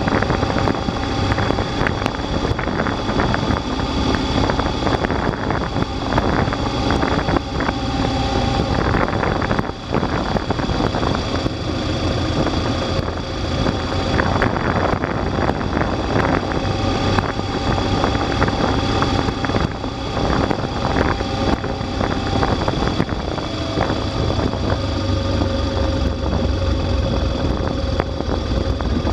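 Motorcycle engine running at a steady road speed, heard from on board, with wind rushing over the microphone.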